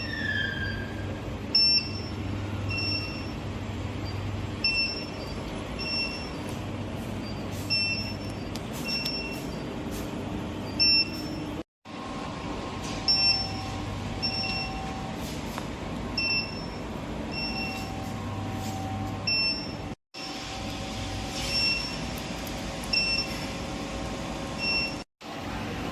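Induction melting furnace running with a steady electrical hum, and short high electronic beeps repeating about once a second. The sound drops out briefly three times.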